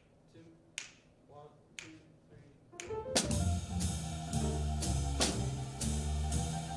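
Sharp clicks about once a second counting off the tempo, then about three seconds in a jazz rhythm section comes in: drum kit with cymbals and walking upright bass.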